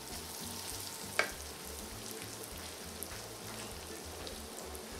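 Pine nuts and bacon sizzling steadily in a frying pan as a pat of butter melts into the hot fat, stirred with a wooden spatula. One sharp knock comes about a second in.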